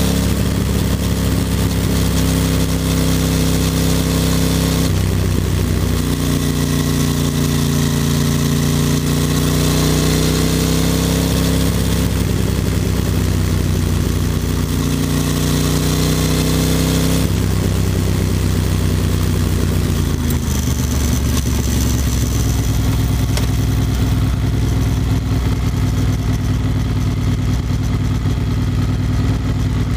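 Ducati Monster 620's air-cooled L-twin engine running as the bike rides along, with wind noise over it; the engine note steps at about 5 and 17 seconds in. From about 20 seconds in the pitch drops and the engine settles into a low, even idle pulse with the gearbox in neutral as the bike slows.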